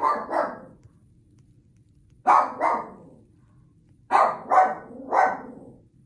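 A dog barking in three short volleys of two or three barks each, about two seconds apart.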